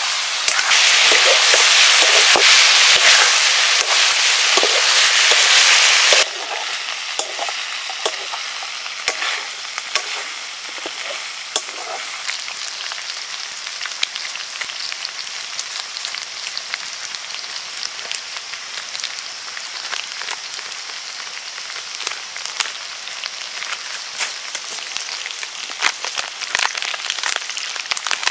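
Food sizzling as it fries in a pan, with stirring scrapes and clicks. The sizzle is loud for about six seconds, then drops suddenly to a quieter, crackling sizzle with scattered ticks.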